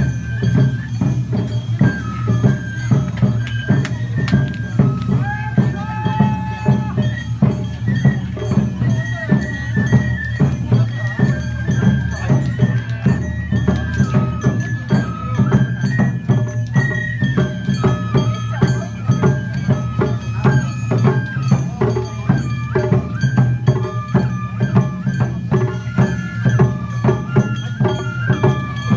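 Traditional Japanese festival dance music: a high melody of held, stepping notes over a steady, driving percussion beat.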